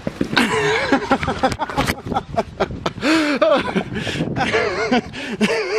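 A high-pitched voice in short phrases with rising and falling pitch, like a person talking and chuckling.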